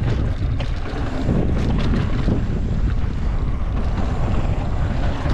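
Wind buffeting the microphone of a mountain bike rider's camera over the rumble of the bike rolling over rock and dirt trail, with small knocks and rattles from the bike throughout.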